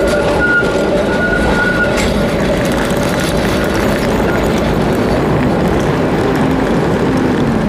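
A Gothenburg M32 low-floor tram passing close by, its wheels and running gear giving a steady high whine over the rolling noise that fades out about two seconds in. A city bus then drives across the junction, its engine a low steady hum under the general traffic noise.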